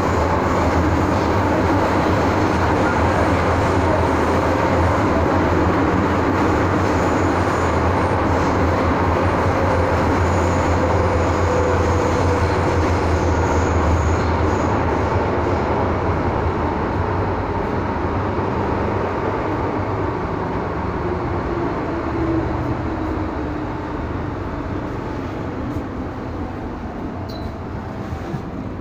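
Hong Kong MTR M-Train heard from inside the car, running between stations: a dense, steady rumble of wheels and running gear. In the second half a tone slides down in pitch and the noise eases, as the train slows.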